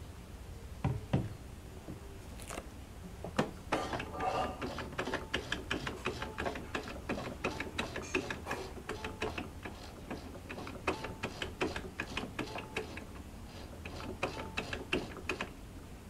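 The exposed mechanism of a Jaguar portable sewing machine being cycled while its moving parts are oiled: its gears and needle-bar linkage give a couple of single clicks, then from about three seconds in a long run of irregular clicks and ticks, a few a second, that stops near the end.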